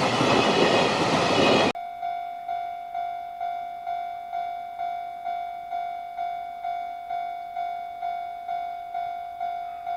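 Freight train wagons passing close by, a loud dense rumble that cuts off abruptly about two seconds in. Then a Japanese level-crossing alarm rings: a single electronic bell tone struck about twice a second.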